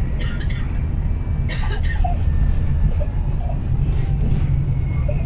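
Inside a moving city bus: a steady low rumble of engine and road noise through the passenger cabin, with a couple of sharp clicks or rattles about a third of a second and a second and a half in.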